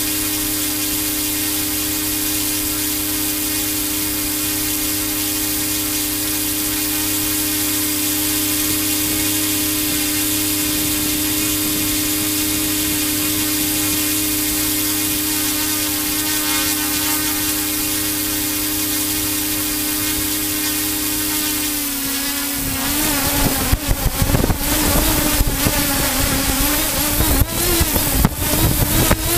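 Model aircraft's motor and propeller heard from on board: a steady whine, held at one pitch, that a little past two-thirds of the way through drops slightly and starts to waver. Wind buffeting the microphone sets in at the same time.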